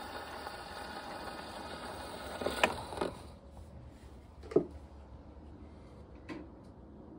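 Wind-up gramophone with a 78 rpm shellac record: steady surface hiss with no music, broken by a few sharp clicks and knocks. The hiss cuts off about three seconds in, and a couple more faint knocks follow.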